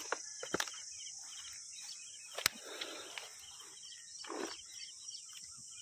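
Outdoor ambience: a steady high-pitched insect drone with a bird's short chirps repeating over it. A few sharp clicks and two brief noisy rustles come about two and a half and four seconds in.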